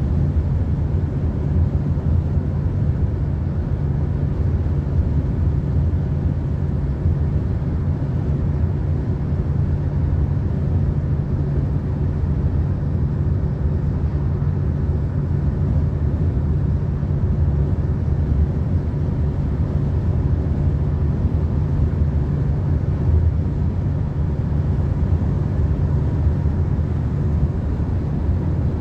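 Steady low rumble of road and engine noise heard inside the cabin of a car driving along a highway.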